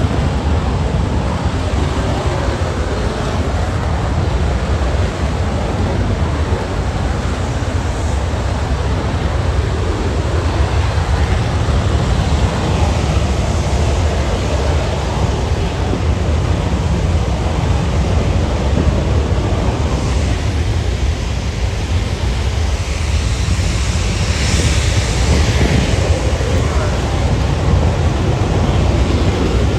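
Jet noise from Red Arrows BAE Hawk T1s during their takeoff: a loud, steady rumble with a high hiss that swells about 24 seconds in. Wind buffets the phone microphone.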